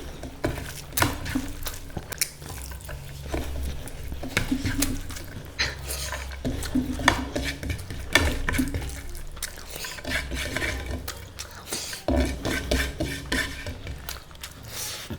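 Dishes and cutlery clinking and scraping at a meal of curry and rice, with many irregular sharp clicks throughout.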